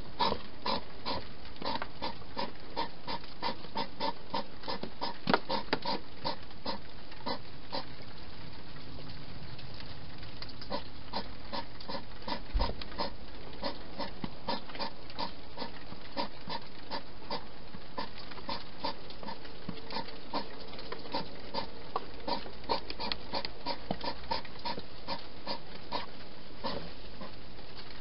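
Wild hedgehog feeding at the bowls inside a plastic feeding station: a run of quick, smacking chews and clicks, about three a second, that thins out in the middle and picks up again near the end. There is one low thump about halfway through.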